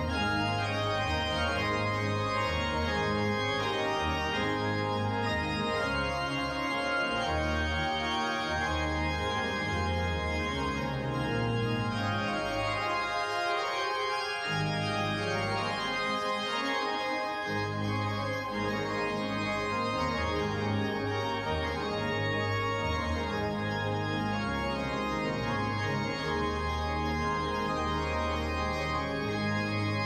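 Pipe organ playing sustained chords over deep held bass notes on the pedals; the bass drops out for a few seconds about halfway through.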